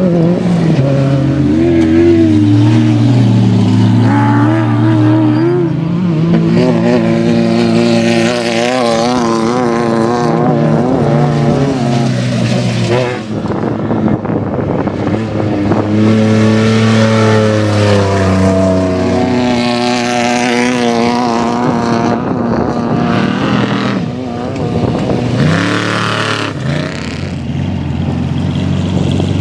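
Off-road race vehicle engines revving hard as they drive by, pitch climbing and falling several times and wavering over rough ground.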